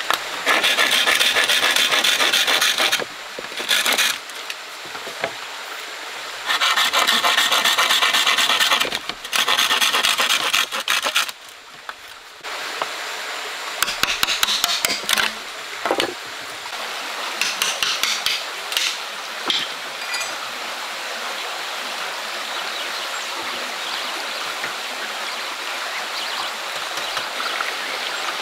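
Quick rasping strokes on wood in two long runs, then shorter scattered strokes, over the steady rush of a stream.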